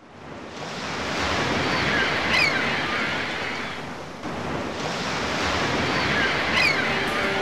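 Ocean surf: waves washing in, fading up at the start and swelling twice, with a dip about four seconds in. A short high falling call sounds once in each swell.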